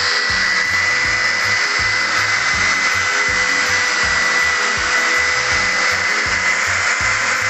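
Electric wall sander with a round sanding head and dust-extraction hose, running steadily against gypsum plaster: a steady motor whine over the hiss of sanding. Background music with a steady beat plays along.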